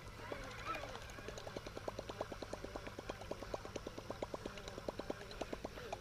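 Baitcasting reel being cranked to retrieve a lure, its gears ticking steadily at about nine ticks a second, starting about a second and a half in.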